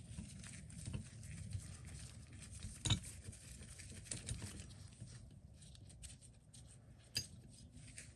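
Faint handling noise of hands working small metal parts, with a few light clicks about 3 seconds in and again near 7 seconds, as the last screw is worked out of an old vise.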